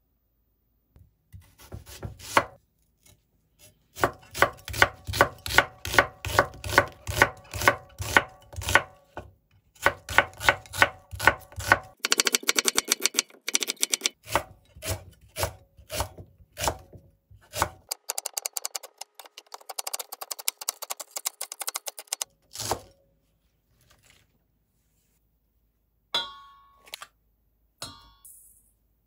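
Kitchen knife chopping onion on a wooden cutting board: a steady run of sharp strokes that speeds into rapid chopping in two stretches. Near the end, a few brief clinks of a metal spoon in a stainless steel mixing bowl.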